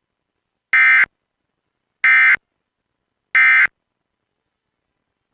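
Emergency Alert System SAME digital data tones: three short, identical screeching bursts about a second apart, each about a third of a second long. Short bursts like these are the end-of-message (EOM) code, which signals that the alert broadcast has finished.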